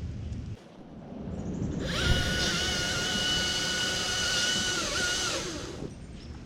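A chainsaw running for about four seconds, with a steady high whine over the noise of the chain. It starts about two seconds in and cuts off near the end.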